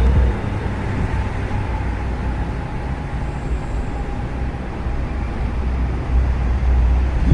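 Road traffic noise: vehicles passing with a steady rush of engines and tyres and a deep rumble, growing louder near the end as something approaches.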